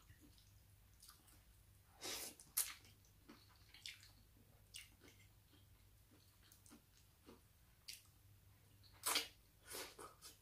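Quiet eating sounds: a few short slurps and mouth noises from a person eating khanom jeen rice noodles in curry by hand, the clearest about two seconds in and again near the end.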